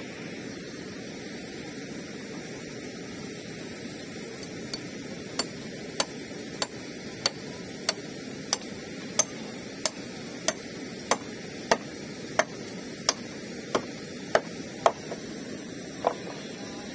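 Hammer blows on the wooden deck planks of a flood-damaged footbridge being patched up, a steady run of sharp knocks about one and a half a second, starting about five seconds in and stopping near the end. A steady rushing noise, fitting the fast-flowing stream beside the bridge, lies under them.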